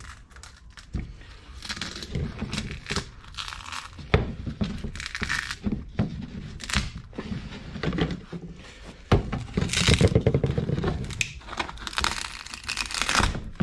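Crinkling and tearing of thin plastic film and sheet material, mixed with scrapes and knocks, as a freshly moulded single-layer carbon fibre piece is handled. It comes as an irregular string of short crackles and rips, busiest about ten seconds in.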